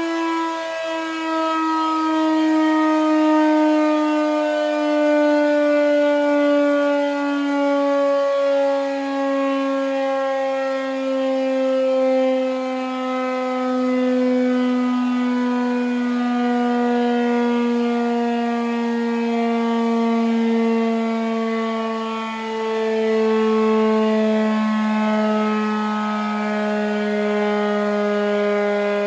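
Emergency warning siren sounding one long, loud tone with strong overtones that slowly sinks in pitch, like a siren winding down.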